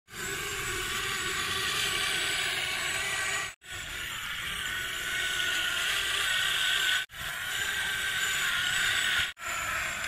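Small electric motor of a toy RC vehicle whirring steadily, cut off abruptly three times.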